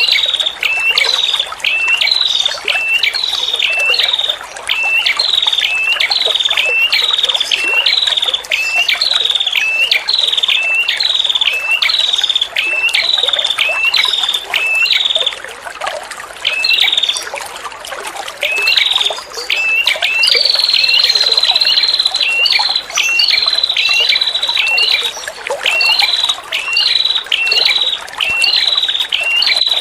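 Female prenjak calling in a fast repeated series, about two short high notes a second, each dipping and hooking back up, over steady trickling water. The calls break off for a few seconds around the middle, then resume with one long held note.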